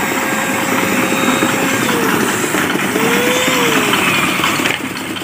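Handheld electric paint spray gun running steadily as it sprays paint onto roof tiles.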